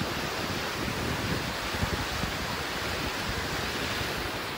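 Monsoon-swollen river in flood, its muddy water rushing and churning past in a steady hiss, with wind buffeting the microphone in uneven low gusts.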